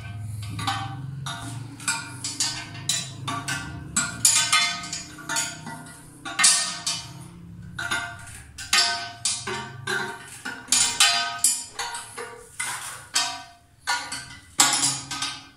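Metal wrench clinking and scraping against the mounting nuts of a wall-hung toilet as they are tightened: an irregular run of short, ringing metallic clicks, several a second.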